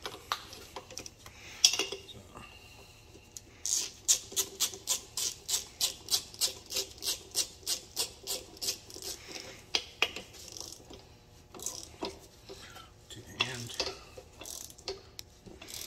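Socket ratchet clicking in a quick, even run of about four or five clicks a second, then a few scattered clicks, as it turns a puller's forcing screw to draw the drive pulley off a supercharger snout.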